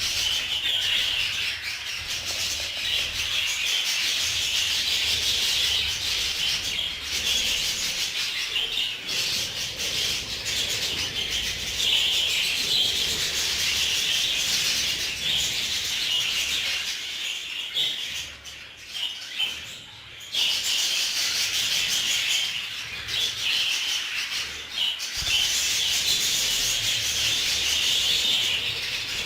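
A colony of many budgerigars chattering and warbling together in a dense, unbroken chorus that thins briefly about two-thirds of the way through.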